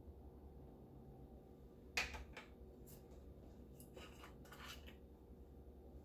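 Near-quiet room tone with one sharp click about two seconds in, followed by a few fainter clicks and rustles, from a hand setting green olives on a ceramic plate of hummus.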